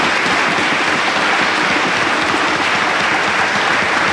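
Audience applauding steadily at the end of a song, a dense even clapping.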